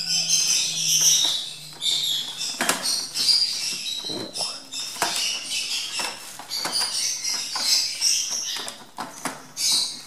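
Caged young lovebirds chirping in short, high calls, over the crackle and rustle of torn packing paper, foil and a plastic bag being handled around the wire cage.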